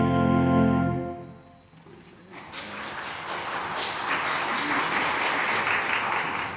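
The final held chord of a Baroque vocal duet with its accompaniment dies away about a second in. Applause then starts and carries on.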